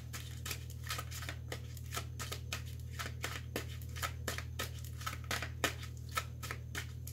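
A deck of tarot cards being shuffled by hand: a quick, irregular run of soft snaps and flicks as the cards slide and slap together, about three or four a second, over a steady low hum.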